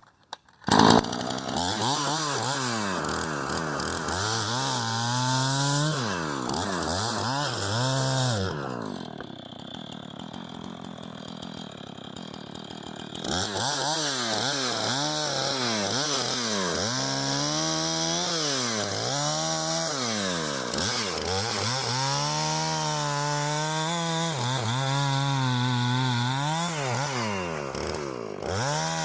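Two-stroke chainsaw bucking a hardwood ash log, its engine pitch dipping and recovering again and again as the chain bites into the cut. It eases off to a quieter idle for about four seconds in the middle, then revs back up and carries on cutting.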